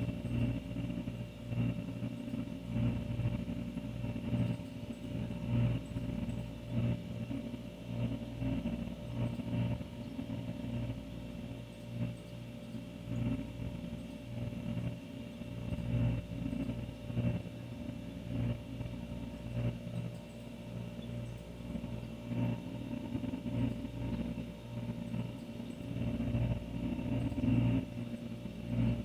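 Older refrigerator running with a steady low hum, a fainter higher tone above it, and a loudness that wavers slightly.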